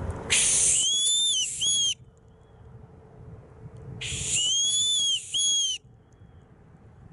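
Boatswain's whistle (bosun's call) blown in two loud, very high-pitched blasts, about four seconds apart. Each opens with a breathy hiss, warbles up and down, and ends in a short clipped note. A faint echo off the building trails each blast.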